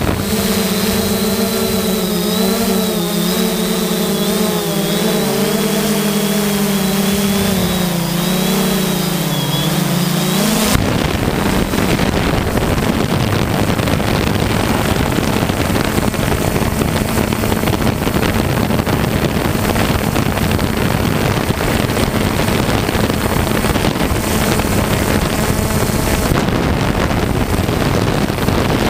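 3DR Solo quadcopter's motors and propellers humming, the pitch wavering slightly as it manoeuvres. About ten seconds in the hum suddenly gives way to a rushing noise of wind on the microphone, with the hum faint beneath it.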